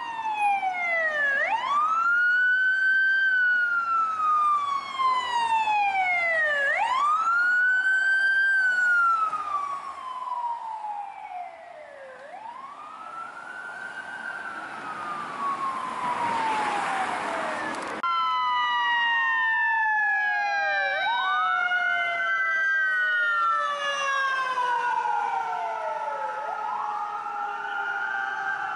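LAFD rescue ambulance siren on wail, each cycle rising quickly and then falling slowly, repeating about every five seconds. After a sudden change about eighteen seconds in, a second siren wails at the same time, out of step with the first.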